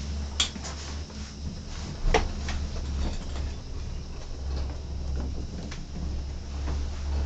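Moving cable car gondola heard from inside the cabin: a steady low rumble with a few sharp knocks and rattles, the loudest about two seconds in.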